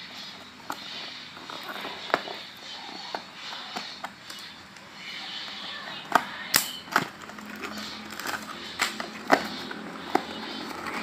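Hands opening a small cardboard parts box and handling its plastic wrapping: rustling and crinkling with irregular sharp clicks and taps, which come more often and louder in the second half.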